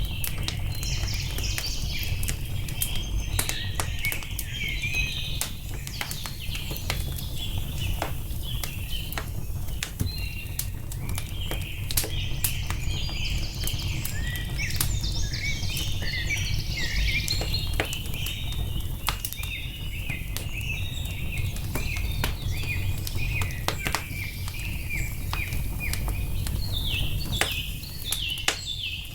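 Wood fire crackling with frequent sharp pops over a low steady rumble, while small birds chirp and trill almost without pause.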